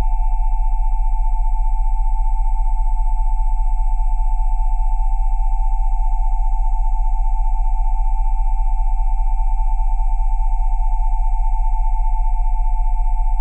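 Steady electronic sine tones: a cluster near 727, 787 and 880 Hz over a very deep 20 Hz tone, held unchanging.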